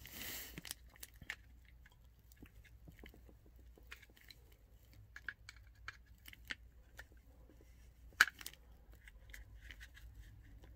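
Screwdrivers working against the plastic housing of an HVAC blend door actuator as it is pried apart: faint scattered clicks and scrapes of steel on plastic, with one sharp click about eight seconds in.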